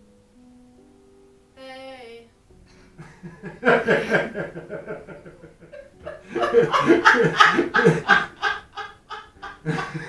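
People laughing hard in rapid, repeated bursts, starting about three seconds in and growing louder. Before the laughter a few steady tones shift in pitch.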